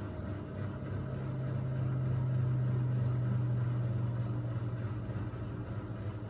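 Miele Navitronic W3985 WPS washing machine running late in its Express 40° cycle: a steady machine hum with a low tone that swells about a second in, holds, then eases slightly lower near the end.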